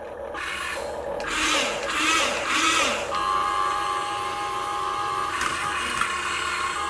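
Small electric drive motors and gears of a toy-grade RC Caterpillar construction vehicle whining as it pushes another RC car. There are three surges in the first few seconds, then a steady higher whine from about three seconds in.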